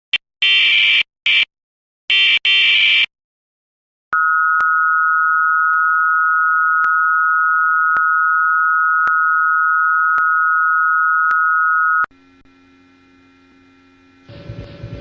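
Emergency Alert System signal: the last of the short screeching digital header bursts, then after a brief pause the steady two-tone attention signal, held for about eight seconds before it cuts off. A faint hum follows, and louder noise starts near the end.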